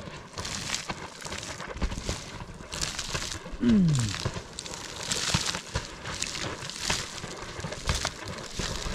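Hot sulphur spring bubbling noisily, gas bubbles breaking through the water in an irregular crackle and gurgle. A brief low note falls in pitch a little under four seconds in.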